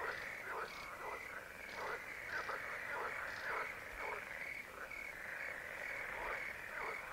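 Chorus of many frogs calling over one another in quick, overlapping croaks, with a steady high-pitched trill running underneath.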